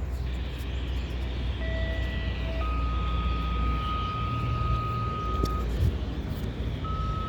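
Radio receiver picking up a siren-activation tone sequence on the county siren frequency: a string of steady beeps of different pitches over radio hiss, one held about three seconds, with a new tone starting near the end.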